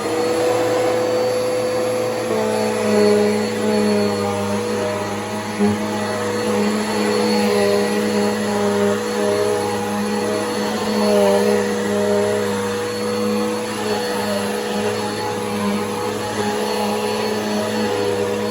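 Bissell PowerForce Helix upright vacuum cleaner running, its motor whine rising to full speed right at the start, then running steadily with small wavers in pitch as it works the couch.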